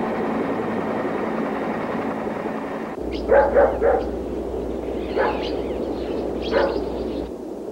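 A dog barking: three quick barks, then two single barks over a steady low hum. Before the barks, a steady rushing noise of aircraft.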